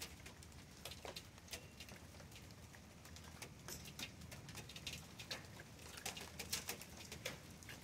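Faint outdoor ambience of birds calling, with many short, sharp ticks scattered through it over a low, steady rumble.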